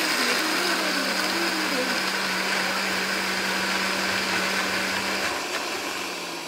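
Countertop blender running steadily, crushing ice with vodka and drink mix into a slush. A little past five seconds in its steady hum drops out and the sound quietens, as the ice clogs up around the blades.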